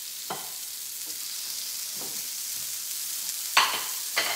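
Balls of ground beef sizzling steadily in a little oil on a smoking-hot cast-iron griddle. A second ball is set down just after the start. Two sharp knocks come near the end.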